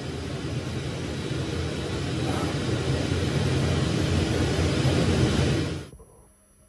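Powell CNC DCT3 digital cutting table running while its universal knife tool cuts printed vinyl. The sound is a steady noisy rush with a strong low rumble that grows slightly louder, then cuts off abruptly near the end.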